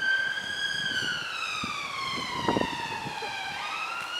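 Siren wailing in one long slow sweep: its pitch falls steadily for a few seconds, then climbs back quickly near the end. There are a few faint knocks beneath it about halfway through.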